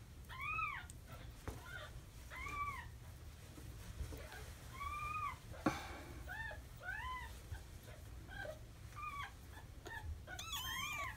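A two-week-old kitten mewing again and again, about eight short high mews that each rise and fall in pitch, as its crusted, infected eyes are wiped open with a damp cloth. A faint click sounds about halfway through.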